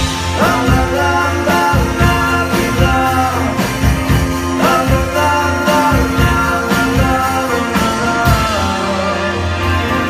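A rock band playing live: electric guitars, bass guitar and drum kit with a steady beat, and a man singing lead over the top. The singing stops near the end while the band plays on.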